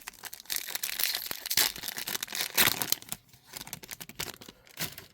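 Crinkling and tearing of a trading card pack wrapper being ripped open, dense for the first three seconds, then a few scattered crackles and clicks as the cards are pulled out.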